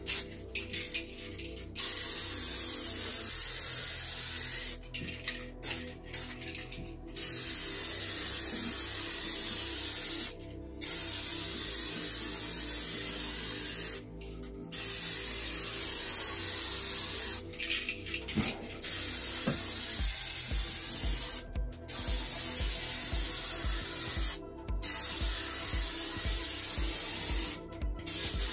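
Aerosol spray paint can with a wide fan nozzle hissing in about eight passes of two to three seconds each, with short breaks and small clicks between them, as a light dust coat goes on. Soft low thuds repeat steadily in the last third.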